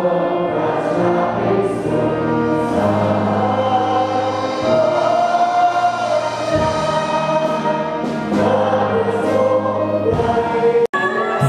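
A large group of students singing together in unison, with a live band accompanying them and long held notes.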